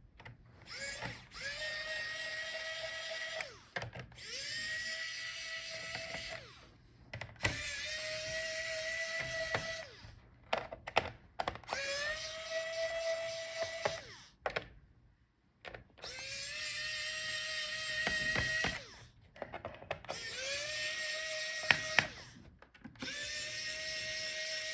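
Small electric screwdriver backing out the laptop's bottom-case screws one after another. The motor whines up to a steady pitch for about two seconds at a time, about seven times, with short clicking pauses in between.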